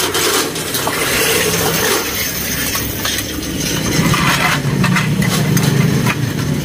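Corrugated steel roll-up shutter being pulled down, its slats rattling and scraping with metallic clinks. A low engine hum comes in about four seconds in.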